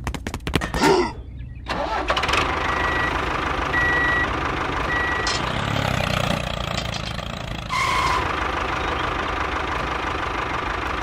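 A tractor engine starting: a quick run of clicks, then the engine catches about two seconds in and runs steadily at idle. Three short high beeps sound over it a little later.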